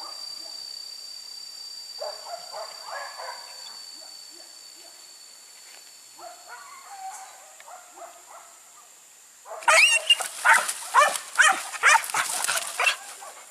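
Leashed hunting dogs yelping and barking while they wait to be released for the chase. There are quieter calls first, then a quick run of about eight sharp barks in the last few seconds.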